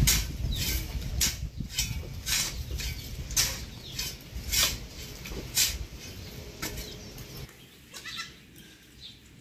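Short-handled hoe digging into a heap of dry soil, a gritty scraping stroke about every half second. The strokes thin out and go quieter after about six seconds.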